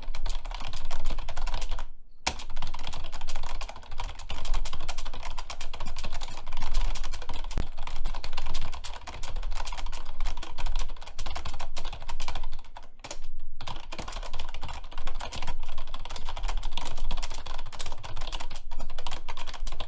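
Fast, hard typing on a computer keyboard: a dense, unbroken run of key clicks at speed-test pace, about 139 words per minute. It breaks off briefly twice, about two seconds in and again around thirteen seconds.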